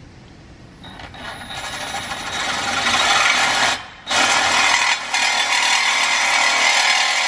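Milwaukee Fuel cordless reciprocating saw cutting through the car's exhaust pipe. It starts about a second in and builds up over the next two seconds, stops for a moment about four seconds in, then runs on steadily.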